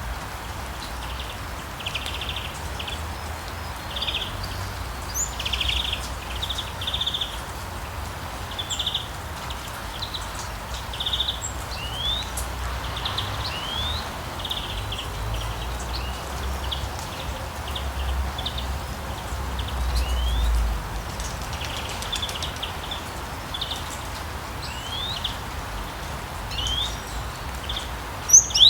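Steady rain falling on a street, with songbirds singing over it in short trilled phrases and quick rising chirps that keep repeating. A low rumble runs underneath and swells briefly a little past the middle.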